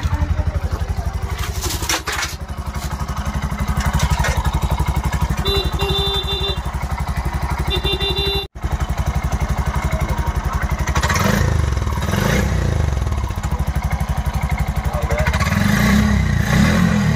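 Bajaj RE Compact 4S auto rickshaw's single-cylinder four-stroke engine idling just after start-up, with a quick, even beat. Its note wavers a couple of times in the second half.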